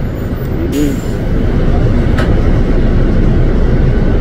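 City bus heard from inside the cabin: a steady low rumble of engine and road noise. A short hiss comes about a second in and a click a little after two seconds, and the rumble grows slightly louder after that.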